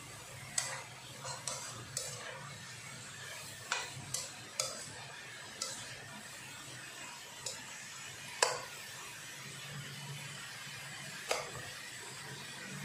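Plastic spatula stirring diced vegetables in a nonstick wok: irregular taps and scrapes of the spatula against the pan over a steady sizzle. The loudest tap comes about eight seconds in.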